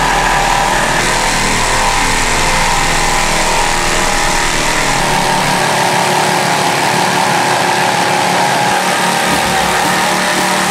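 Brushless cordless jigsaw running steadily while its reciprocating blade cuts through a thick wooden board.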